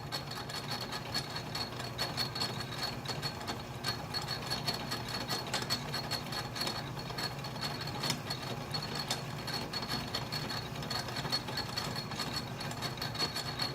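Atlas metal lathe running under a facing cut, the tool traversing across the face of the plate: a steady low hum with a thin high whine over it and a constant patter of small ticks.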